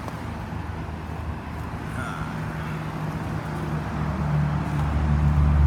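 Central air-conditioner condenser unit running: a steady low hum that grows louder about four seconds in.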